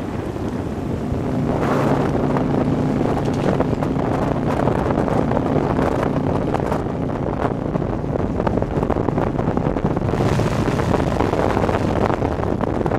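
Motorcycle running at road speed, with wind rushing hard over the microphone and a steady engine hum underneath.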